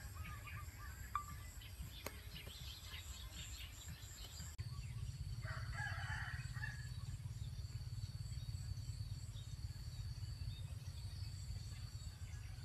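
A rooster crows once, about five and a half seconds in, over a steady low outdoor rumble. Small birds chirp in the first few seconds.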